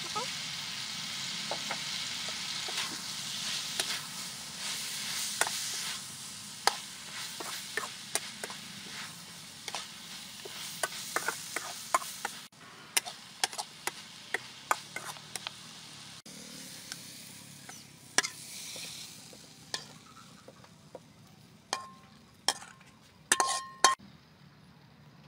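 Stir-frying in a wok: a steady frying sizzle with the scrapes and clicks of a metal ladle stirring leafy greens. The sizzle fades about halfway, leaving scattered clicks, with a few sharper ringing clinks of metal on the pan near the end.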